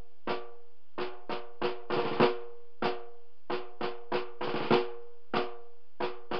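Background music: drum and snare hits in an uneven rhythm over a held note.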